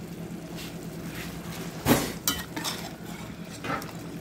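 Metal ladle clinking and scraping against a stainless steel pot while scooping boiled penne out of its cooking water: a few light clinks and one louder knock about two seconds in, over a steady low hum.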